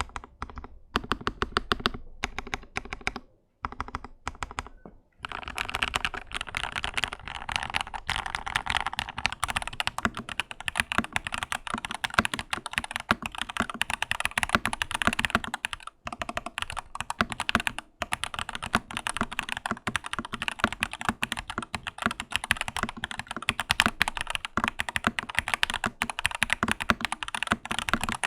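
Lychee G80 mechanical keyboard being typed on: a few separate keystrokes with short gaps, then fast, continuous typing from about five seconds in.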